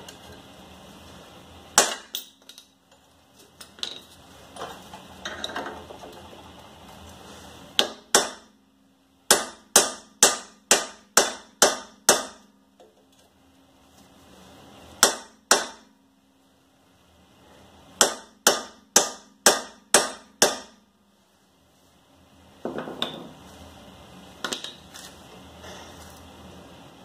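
Sledgehammer blows on a seized rear wheel hub of a 2010 Toyota Prius, trying to drive it loose: a few single strikes, then runs of five or six blows about two a second with pauses between.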